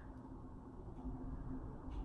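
Quiet room tone with a faint steady hum and a few soft taps, about a second apart, as a dry makeup sponge dabs concealer under the eye.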